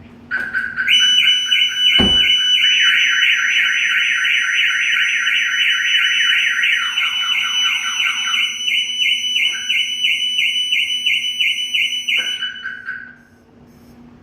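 Car alarms going off together after the door handle is pulled: the aftermarket Viper 5706V siren and the Audi RS3's factory alarm, loud repeating electronic tones that stop near the end. A single thump about two seconds in.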